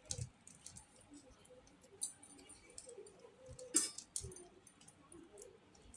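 Faint handling sounds of a plastic modak mould being filled: fingers picking soft besan dough out of a pan and pressing it into the mould halves, with scattered light plastic clicks and one sharper click a little under four seconds in.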